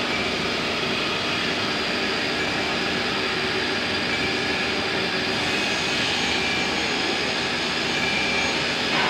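Holztek CNC nesting router running over a board panel: steady machine noise with a high whine, and a higher whine joins about halfway through.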